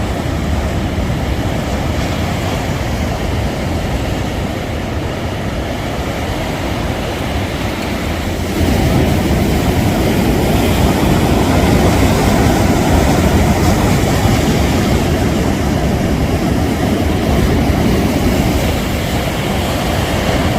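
Sea waves breaking on a beach, a steady rushing wash that swells louder about eight seconds in as a bigger wave comes in.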